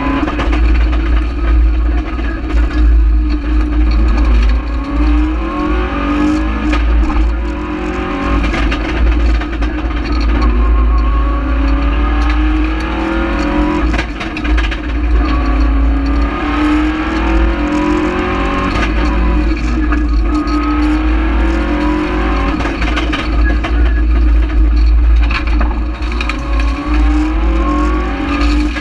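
Rally car engine heard from inside the cabin under hard acceleration. It revs up through the gears in repeated rising sweeps, each cut off by a gear change, over a heavy low rumble from the road.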